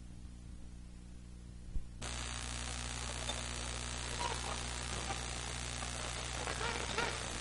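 Steady electrical mains hum in the recording. About two seconds in it switches suddenly to a louder, even hiss over the hum, with a few faint short squeaks.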